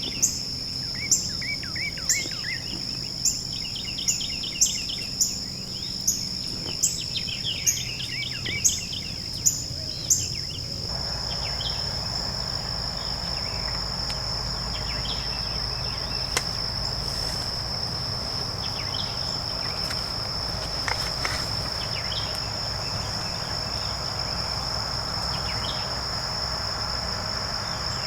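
Insects droning steadily on one high pitch, with songbirds singing in short trilled phrases. For the first ten seconds a sharp call repeats about twice a second, then stops and an even background hiss rises.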